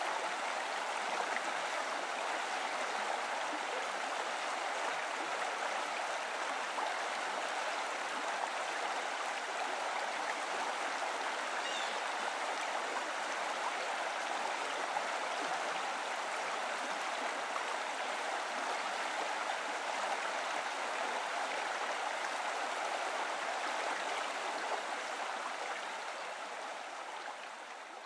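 Steady sound of running water, fading down near the end.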